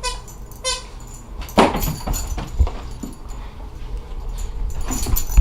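A dog whimpering twice, two short high-pitched whines close together right at the start, followed about a second and a half in by a louder sudden noise and then scattered rustling and clicks.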